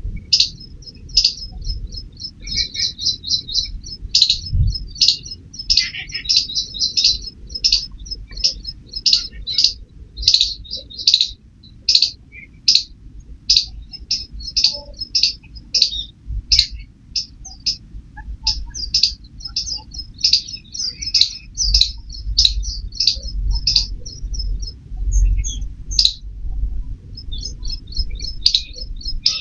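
A squirrel chirping: short, high-pitched, bird-like chirps given rapidly in runs of several a second, going on with only brief pauses.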